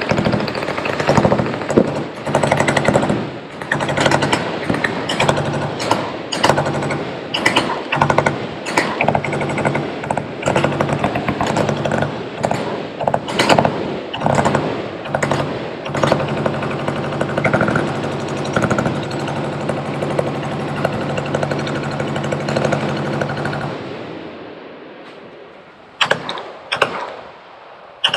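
Machine guns firing continuously on the firing line, a dense rattle of overlapping bursts over a steady low hum. The firing stops about 24 seconds in, then a couple of short bursts follow near the end.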